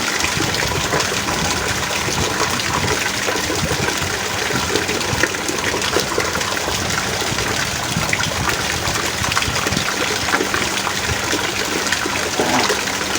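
Heavy rain falling steadily: a dense, even rush of water with many small drop ticks throughout.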